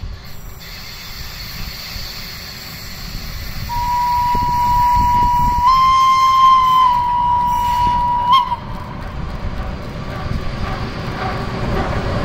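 Vintage De 6/6 electric locomotive sounding one long, high warning signal of about four and a half seconds as it approaches. Its pitch steps up slightly for about a second in the middle. The train's running rumble grows louder near the end as it draws close.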